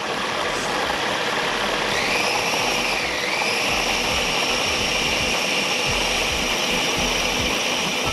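Food processor running steadily, its motor whine sagging briefly in pitch about two seconds in, as it blends butter, sugar, flour and egg into tart dough.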